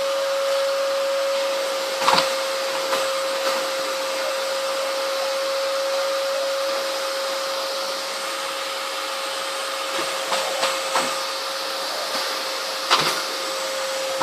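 Vacuum cleaner running steadily with a constant whine, and a few short knocks and clicks now and then as it is pushed around the floor.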